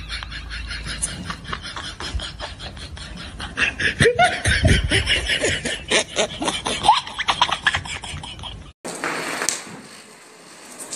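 A group of young men laughing and calling out over a fast, even clicking beat. About nine seconds in it cuts sharply to a steady hiss of a firecracker throwing sparks.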